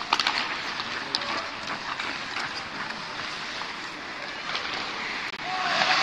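Ice hockey rink sounds: skate blades scraping and hissing on the ice, with a few sharp clacks of sticks and puck, echoing in a large near-empty arena. Near the end the scraping gets louder and a voice calls out.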